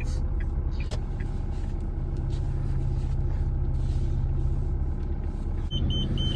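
Car running, its steady low rumble heard from inside the cabin, with a few light clicks. Near the end a high electronic chime starts beeping about three times a second.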